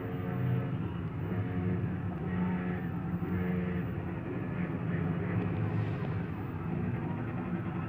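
Steady low rumble of distant street and city noise heard from high above, with no shots or bangs.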